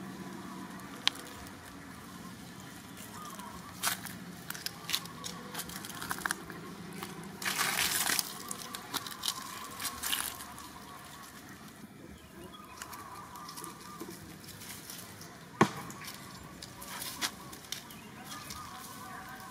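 Dry fallen leaves crackling and rustling on the ground as macaques shift and walk over them: scattered clicks, a longer rustle about eight seconds in, and a couple of sharp single snaps.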